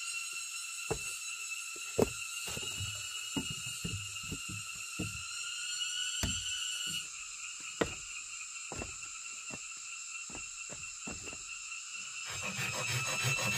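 Irregular knocks and thuds of wood being handled, over a steady high ringing drone. About twelve seconds in, a hand saw starts cutting through wood with a steady rasping.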